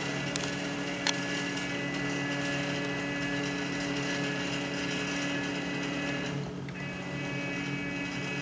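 CNC plasma table gantry drive motors and gear reduction running, a steady whine of several tones as the gantry moves along the table, with a sharp click about a second in and a brief drop in the whine a little past six seconds in. The gantry is moving slower than the owner expects, which he puts down to either motor tuning or the gear reduction.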